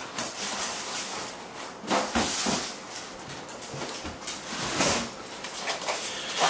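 Rustling and handling noises of an airsoft gun being taken out of its packaging and set on a table, with louder scrapes or knocks about two seconds in and again near five seconds.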